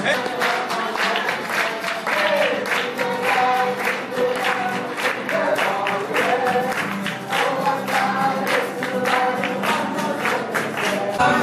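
A group of voices singing together, accompanied by a strummed acoustic guitar with a steady beat.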